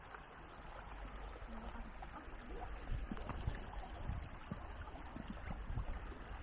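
Water running in a stream, a steady low rush with a few faint knocks.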